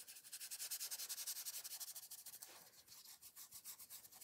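A small size 3 stencil brush rubbing graphite ink onto card in rapid short strokes. It makes a faint, soft scratchy brushing of about ten strokes a second, a little lighter after about two and a half seconds.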